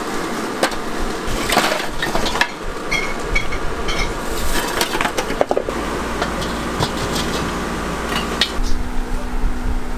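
Scattered clinks and clatter of metal cooking utensils over a steady background hiss, with a low steady hum coming in near the end.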